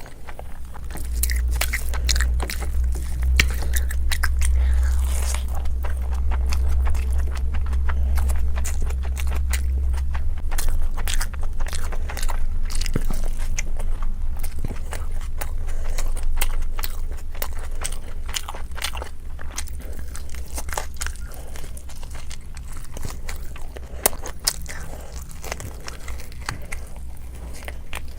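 A person biting and chewing chicken, with many short, sharp crunching bites throughout. A low hum sits underneath for about the first ten seconds.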